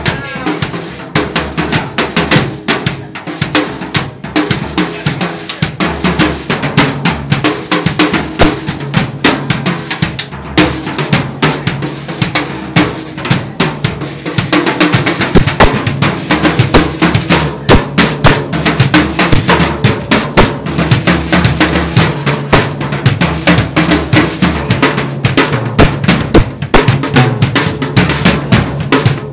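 Drum kit played during a sound check, with bass drum and snare in quick, busy patterns. The playing gets louder from about halfway through.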